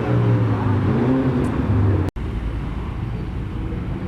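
Car engines running at a street-race meet, one engine's pitch rising a little about a second in. A sudden break about two seconds in gives way to a lower, rougher engine rumble.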